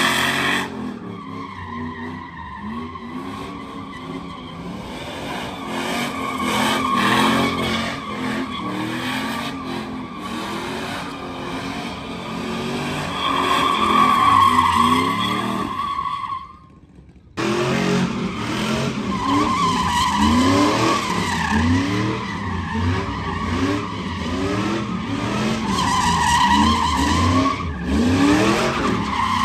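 Pickup truck engine revving hard in repeated rising sweeps while its rear tyres squeal in long, wavering spins on wet pavement during donuts. The sound breaks off briefly about two-thirds through, then the revving and squealing resume.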